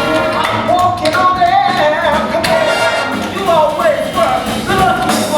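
Jazz band music with a wavering lead melody line over the band, and a few sharp strikes.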